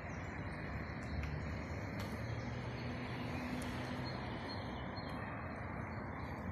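Steady outdoor background noise with a low hum that comes and goes.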